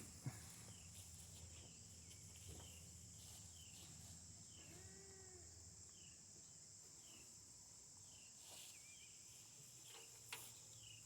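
Faint outdoor ambience: a steady high insect drone with short chirps repeating about once a second, and one brief arched call about halfway through.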